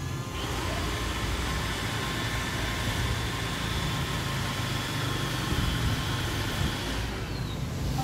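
iRobot Roomba 860 robot vacuum running its vacuum motor and brushes as it drives: a steady whir with a thin whine that starts just after the beginning, and the motor winds down near the end.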